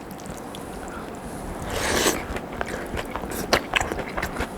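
Close-up eating sounds: a crunchy bite about two seconds in, followed by a run of small crisp crackles and clicks from chewing fried potato sticks.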